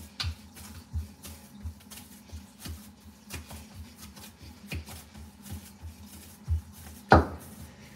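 Hands kneading wheat-flour (atta) dough on a steel tray: soft, irregular thuds and slaps as the palms and knuckles press and fold the dough against the metal, about two a second, with one louder thump about seven seconds in.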